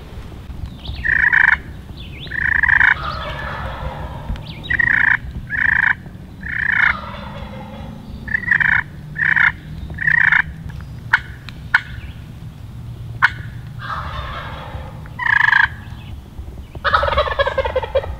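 Wild turkey gobblers gobbling at close range: about a dozen short, loud gobbles at uneven intervals, with a longer, fuller gobble near the end. A few sharp clicks come between them around the middle.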